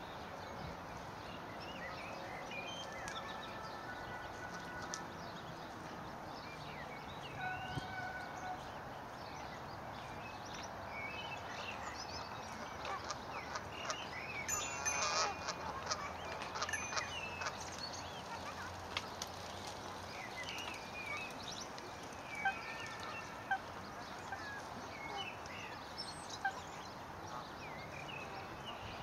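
Newly hatched swan cygnets peeping: many short, high chirps scattered throughout, with a louder cluster of calls about halfway through, over a steady background hiss.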